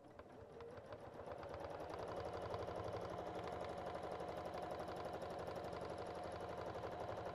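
Domestic sewing machine stitching rapidly during free-motion quilting, with the needle going up and down in a fast, even rhythm. It speeds up over the first couple of seconds as the foot pedal is pressed, then runs steadily.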